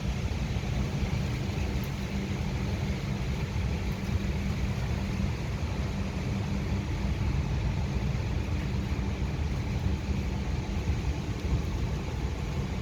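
Rainstorm: a steady hiss of rain over a continuous low rumble.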